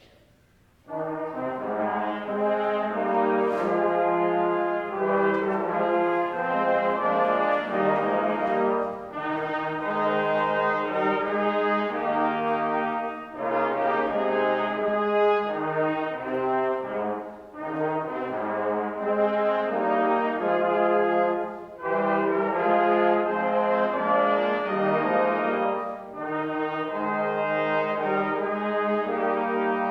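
Church organ playing a slow prelude in sustained chords, phrase after phrase with short breaks between them, starting about a second in.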